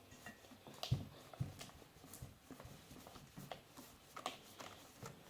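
Faint, irregular clicks and taps from handling a cup and mixing utensil while contact lens solution is added to a slime mixture.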